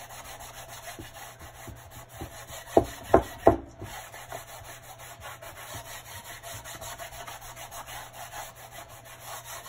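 A cloth rubbing paste wax back and forth into a painted wooden board, a steady scratchy scrubbing. About three seconds in, three sharp knocks follow one another quickly.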